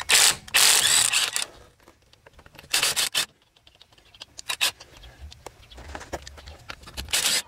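Cordless impact wrench spinning already-loosened lug nuts off a car wheel in several short bursts, the longest in the first second and a half.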